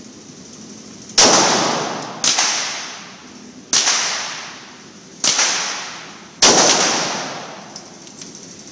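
Glock 9mm pistol fired five times, single shots about a second to a second and a half apart. Each report has a long echoing decay in the indoor shooting range.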